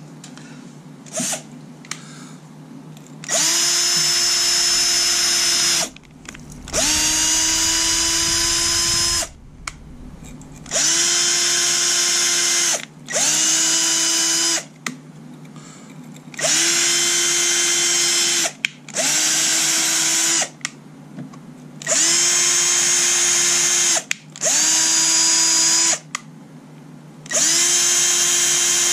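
Cordless drill spinning a small brush in the threaded bolt holes of an engine block, cleaning grease out of them after an acetone soak. It runs in repeated bursts of a couple of seconds each, about nine times, and each burst whines up quickly to speed and then holds steady, with two short blips near the start.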